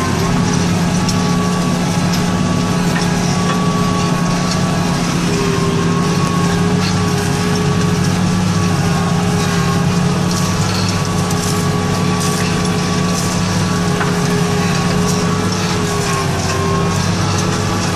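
John Deere tractor engine running steadily under load while pulling a plough. A constant low engine note carries a steady whine above it.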